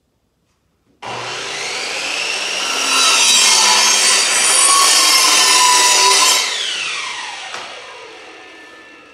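Electric power saw starting up and cutting through a wooden board, with a high whine that is loudest during the cut. About six seconds in, the cut ends and the motor winds down with a falling whine.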